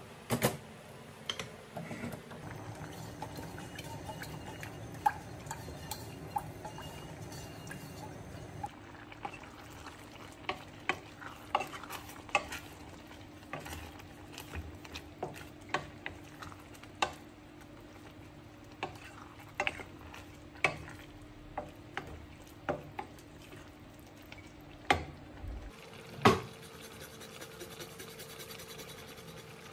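A spoon stirring in a cooking pot, knocking irregularly against the sides, over a faint steady hum. The two loudest knocks come near the end.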